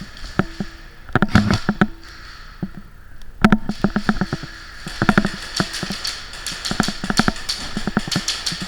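Airsoft electric guns firing in several short full-auto bursts of rapid cracks.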